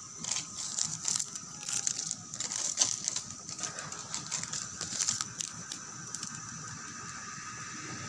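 Chicken soup at a rolling boil in a stainless-steel pot, bubbling with irregular pops and crackles for about the first six seconds, then settling into a steadier hiss.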